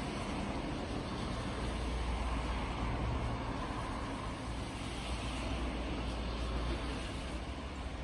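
A steady low rumble of background noise, even throughout with no bird calls standing out.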